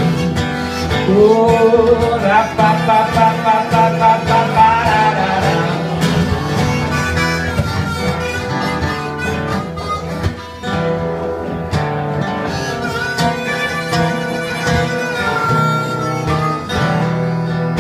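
Harmonica playing a wavering, warbling melody into a microphone over two acoustic guitars strumming steady chords: an instrumental passage with no singing.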